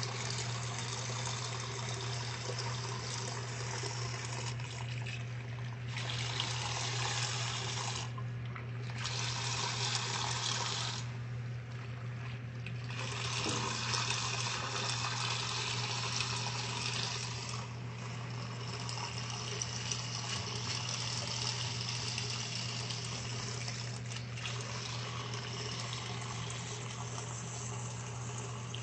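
Water running and splashing into a top-loading washing machine as it fills, over a steady low hum. The water sound changes abruptly several times, as if cut between short clips.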